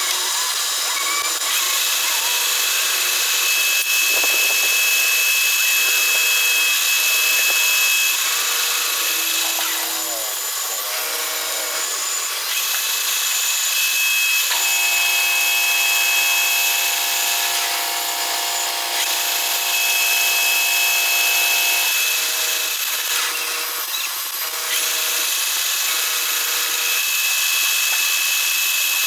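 Manual metal lathe running and cutting a steel workpiece, a steady hissing cut with a thin high whine. A lower humming set of tones joins in about halfway through and stops about three quarters of the way through.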